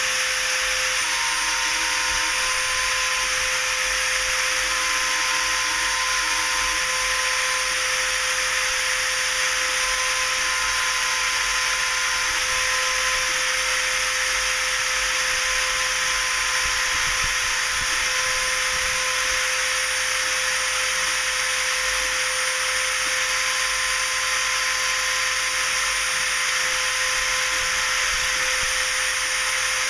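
Rotary-tool spindle of a DIY CNC mill running at high speed, a steady whine and hiss as its engraving bit mills a copper-clad FR4 circuit board. A fainter high tone drops out and comes back now and then.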